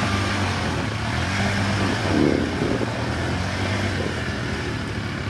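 Quad bike (ATV) engine revving hard with the wheels spinning in deep mud, the machine bogged down; a louder surge about two seconds in.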